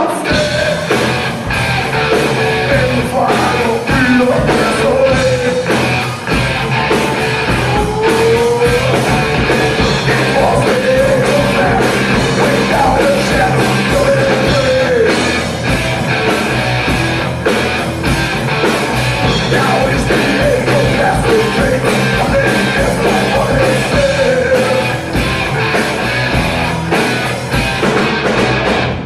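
Rock band playing live: electric guitar, bass guitar and drum kit, with singing over the top. The music is loud and steady.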